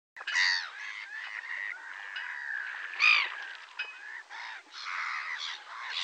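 Black-headed gulls calling again and again in overlapping, rising-and-falling calls, loudest about half a second in and again about three seconds in.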